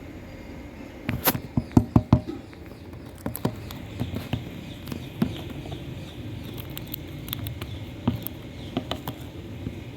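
Sharp clicks and taps, with a quick cluster of loud ones about a second in, then scattered single taps for the rest.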